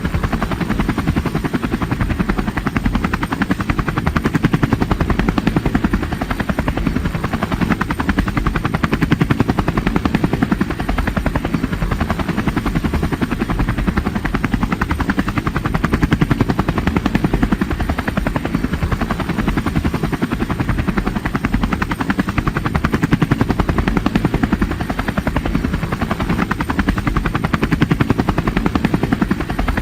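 Helicopter sound effect: a steady, rapid rotor chop over a low engine drone, with only slight swells in loudness.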